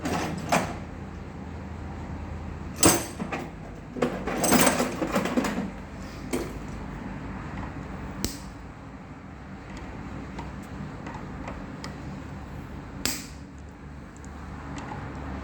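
Scattered sharp clicks and metallic rattles of hand tools and ignition lock parts being handled, in one busier run of clatter in the middle, over a steady low hum.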